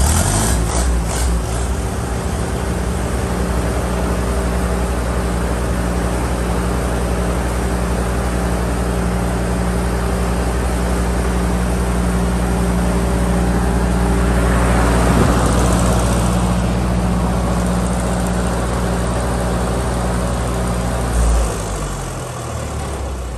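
Continental FA162 flathead four-cylinder gasoline engine on a welder generator, running steadily just after starting. Near the end its pitch falls as it winds down.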